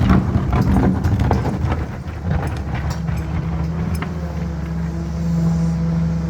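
CAT 320 hydraulic excavator working: a rapid series of knocks and clanks for the first couple of seconds, then its diesel engine running with a steady drone that swells slightly past the middle.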